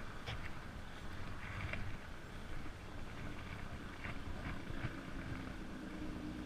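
Wind buffeting the microphone, with a few faint clicks. A faint steady drone comes in about two-thirds of the way through.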